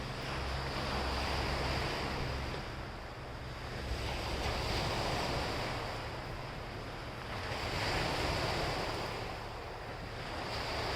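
Sea waves breaking and washing on the shore, the surf swelling and easing about every three seconds, with a low rumble of wind on the microphone.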